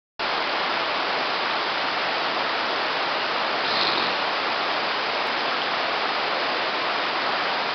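Shallow water rushing steadily over a sloping rock slab in a natural rapids chute, a continuous even rush.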